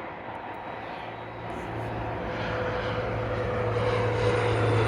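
Engine of a small FedEx Express cargo plane on its landing approach, a steady drone with a low hum that grows steadily louder as the plane draws near.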